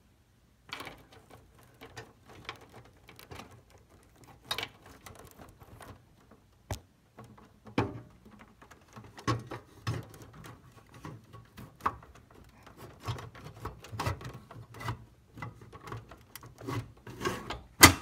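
Hands working a hard-drive bay back into a PC case: irregular clicks, knocks and rubbing as the bay is slid into place, with one sharp knock near the end.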